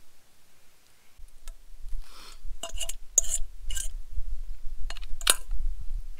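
Utensil clinking and scraping against metal camp cookware while eating: about eight short clinks and scrapes in the middle of the clip, over a low rumble that starts about a second in.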